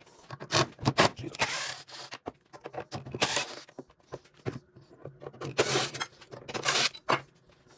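Scraping and clicking of hand tools and parts on a tankless water heater's casing as it is taken apart: a run of sharp clicks with several longer scrapes, each about half a second.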